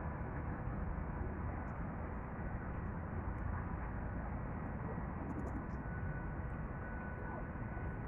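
Steady low rumble of distant road traffic, with a few faint high ticks about five seconds in.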